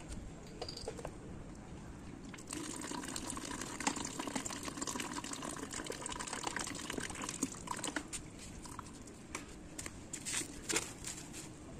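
Engine coolant draining from a motorcycle's drain-bolt hole in a thin stream, trickling and splashing into coolant already collected in a plastic bucket. The stream grows louder about two and a half seconds in, with scattered drips.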